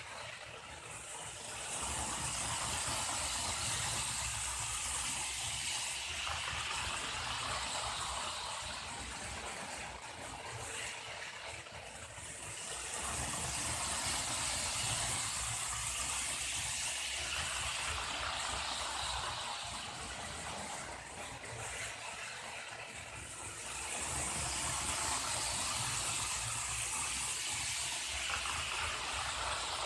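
Märklin H0 ICE 2 model train running on the layout track: a steady whir and rattle of its motor and wheels that swells and fades three times as it comes round close and moves away again.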